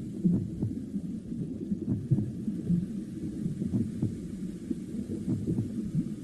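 A heartbeat as heard from inside the womb: a muffled, low whooshing rumble with soft paired beats recurring about every second and a half to two seconds.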